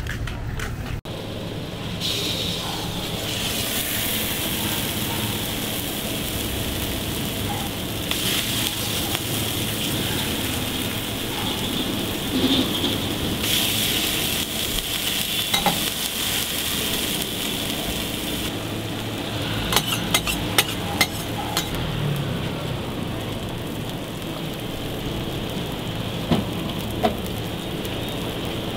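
Longganisa burger patties sizzling on a flat-top steel griddle, a steady frying hiss. A few sharp metal taps and clicks come about two-thirds of the way through and twice more near the end.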